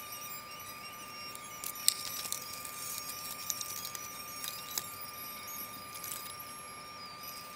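Light clicks and taps of a model airplane wing and small hardware being handled on a workbench, the sharpest click about two seconds in. A faint steady high tone runs underneath.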